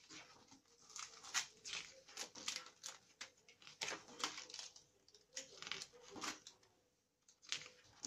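Pages of a spiral-bound picture book being turned one after another: repeated paper swishes and rustles, with a short lull about seven seconds in.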